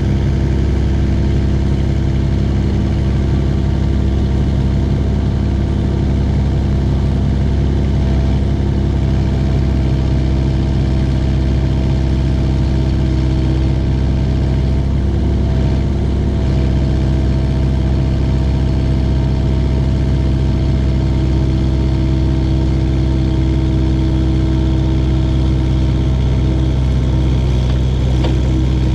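IHI 80NX excavator's diesel engine running at a steady, constant speed.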